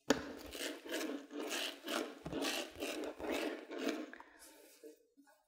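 Chef'n palm herb mincer's rolling blades run back and forth over chives on a bamboo cutting board, mincing them: a rhythm of rubbing strokes about two a second that stops about a second before the end.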